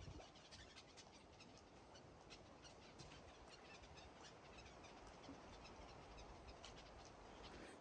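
Near silence: faint outdoor ambience with scattered soft high ticks.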